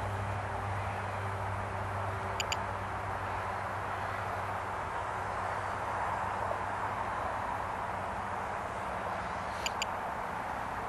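Steady outdoor background noise with a low hum. Two brief high double chirps come through, one early and one about seven seconds later.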